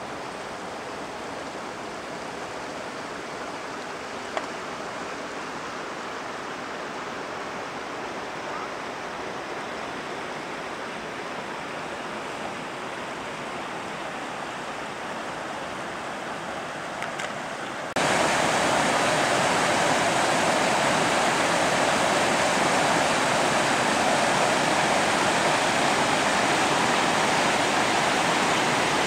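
Steady rushing noise with one sharp click a few seconds in. About two-thirds of the way through it cuts abruptly to a louder, brighter rush that holds steady.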